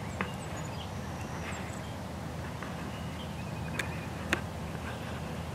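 Outdoor field ambience: a steady low rumble with a few faint, short, high bird chirps, and three sharp clicks, one near the start and two about four seconds in.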